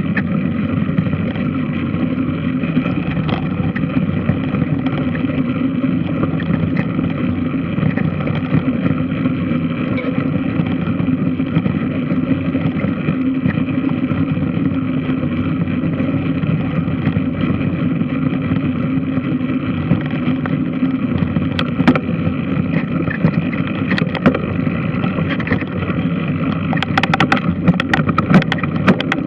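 A large washing machine running with a steady, engine-like mechanical drone. A few sharp clicks or knocks come through in the last several seconds.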